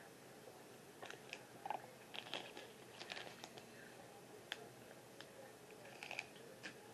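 Faint mouth sounds of a person eating instant ramen noodles: slurping and chewing, with small scattered clicks.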